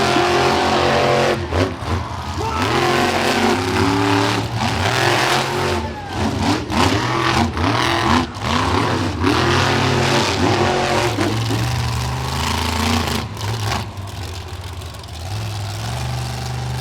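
Monster truck engines revving hard, their pitch swooping up and down again and again over a heavy low rumble, with a few sharp knocks. They settle to a lower, steadier rumble near the end.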